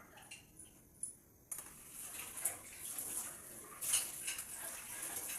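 Metal spatula stirring vegetables in a cooking pan, with repeated clinks and scrapes against the pan. A steady hiss starts suddenly about a second and a half in and runs on under the stirring.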